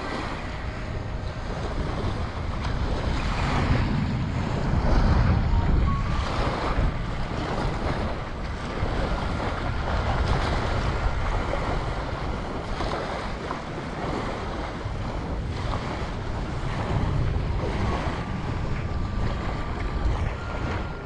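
Wind buffeting the microphone in gusts, over small surf waves washing up on a sandy beach.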